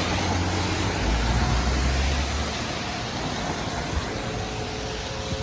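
Road traffic going by, with a vehicle's low engine hum for the first half. Faint steady tones of distant tornado sirens come through the traffic noise in the last couple of seconds.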